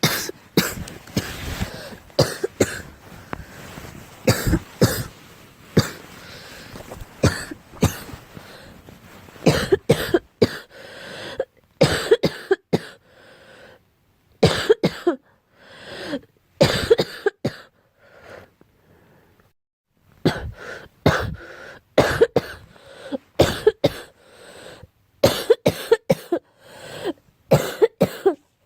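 A girl coughing over and over in fits of several quick coughs each, with short pauses between the fits and a silent stretch of about two seconds about two-thirds of the way through.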